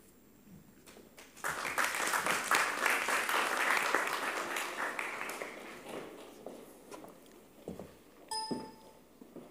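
Audience applauding in a hall: the clapping starts abruptly about a second and a half in and dies away over the next several seconds. A short ringing ping sounds near the end.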